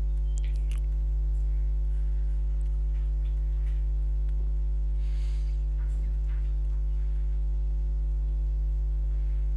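Loud, steady electrical mains hum, low and unchanging, with a few faint keyboard clicks from typing.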